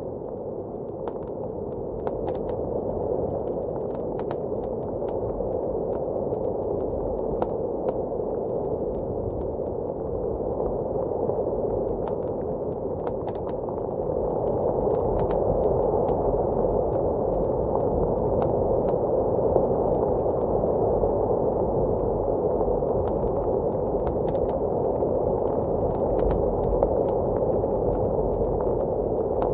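Steady, muffled roar of blizzard wind, with scattered sharp crackles and pops from a wood fire. The wind swells a little about halfway through.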